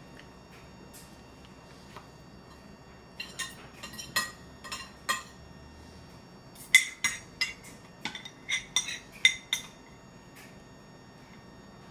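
A spoon clinking repeatedly against a porcelain bowl as a toddler scrapes food from it, each clink ringing briefly. The clinks come in two runs, a handful about three to five seconds in, then a quicker, louder run from about seven to nine and a half seconds.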